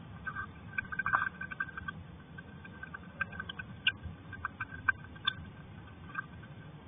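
Hedgehog eating dry food from a dish: irregular crunching and small clicks as it chews. A cluster comes about a second in, and more around four to five seconds.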